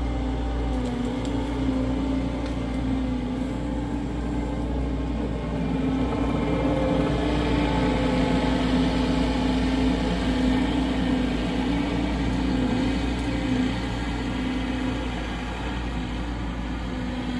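Skid steer engine running steadily under work, a little louder in the middle stretch.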